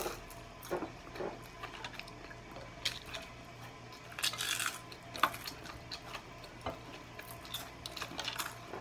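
Scattered light clicks and clinks of dishes and cutlery during a meal, with a short noisy burst about four seconds in, over a low steady hum.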